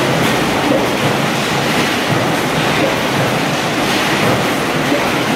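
Steady, loud machinery din of an 18-litre square can body line running, with sheet-metal can bodies travelling on the conveyor.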